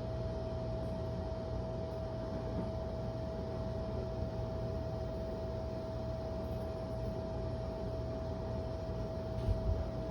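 Steady hum and hiss with one constant mid-pitched tone, and a brief low bump near the end.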